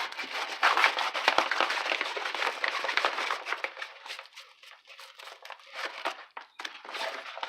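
Plastic crinkling and rustling as a rolled diamond-painting canvas in its plastic film is handled and flattened out by hand, dense for the first few seconds, then sparser crackles and taps.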